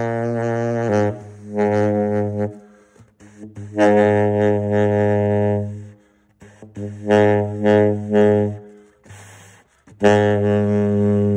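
A 1960 Selmer Mark VI tenor saxophone playing long low notes near the bottom of its range, in about five phrases with short breaths between. One phrase, just after the middle, is a few quick tongued notes, and a long held note starts near the end. This is a play test showing that the horn's low notes sound cleanly.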